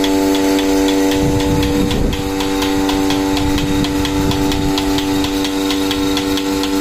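Portable milking machine running: the electric vacuum pump gives a steady hum, with a fast regular ticking of about four ticks a second and a hiss of air.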